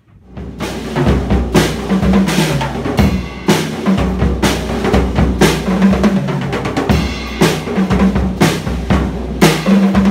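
Pearl Rhythm Traveler compact drum kit played as a full groove with fills, starting about half a second in: bass drum, snare and tom hits with several crashing cymbals. The owner says the kit still needs tuning.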